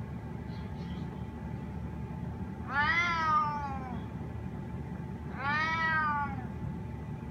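Snow Bengal cat meowing twice, each meow about a second long, rising then falling in pitch: a cat asking to be let outside.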